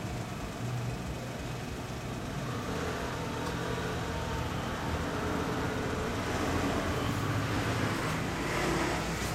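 Steady low rumble of running motor-vehicle engines, swelling slightly near the end.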